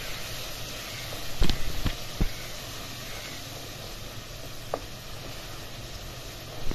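Onion, ginger-garlic and spice paste sizzling in hot oil in a pot while being stirred with a wooden spoon, the masala being fried down. A few knocks of the spoon against the pan come between one and two seconds in, and another near the end.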